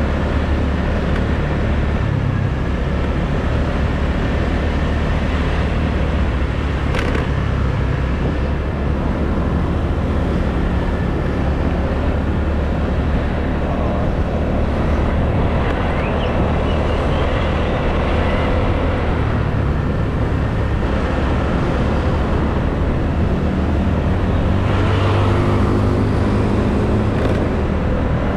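Riding noise from a motor scooter on a town street: a steady rumble of engine and wind with traffic around it, and one sharp click about seven seconds in.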